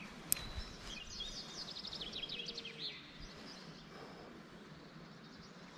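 A songbird singing a quick run of repeated, downward-sliding high notes lasting about two seconds, over faint steady background noise, after a single sharp click near the start.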